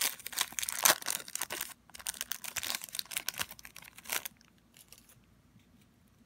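Foil wrapper of a trading-card pack being torn open and crinkled, a dense crackle that stops about four seconds in.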